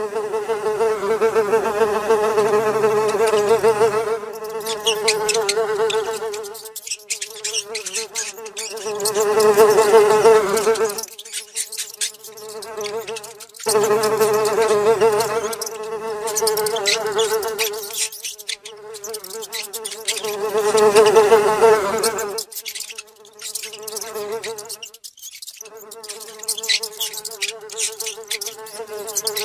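Housefly buzzing: a steady drone that breaks off for a moment every few seconds and starts again. Fast, high ticking is mixed in at times.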